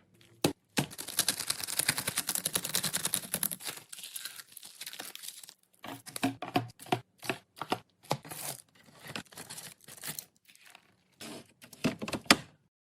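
Plastic snack packaging crinkling and tearing for about three seconds, followed by a series of separate clicks and light knocks as packs and items are handled and set down.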